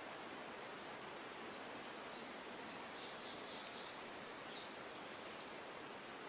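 Steady hiss of outdoor natural ambience, with a small bird chirping in a quick high-pitched burst about a second and a half in and going on for a couple of seconds.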